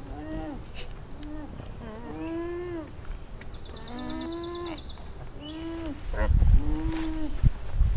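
Alpacas humming over a newborn cria: a string of short hums, each rising and falling in pitch, some overlapping from more than one animal. A low rumble on the microphone comes in near the end.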